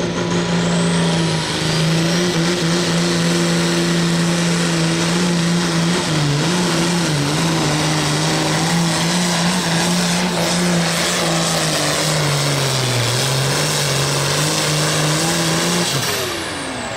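Turbocharged International Harvester pulling tractor's diesel engine running flat out under load as it drags a weight-transfer sled. A high turbo whine climbs in the first couple of seconds, and the engine note sags twice as the sled bears down. Near the end the engine drops off and the whine winds down as the tractor comes to a stop.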